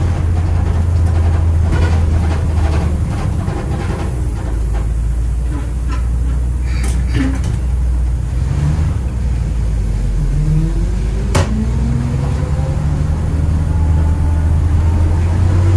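1955 Gillig school bus engine running on the road, heard inside the cab with body rattle. A few seconds in the engine note drops; later it climbs as the bus pulls through a gear on the floor-lever manual gearbox, with a sharp clunk partway through.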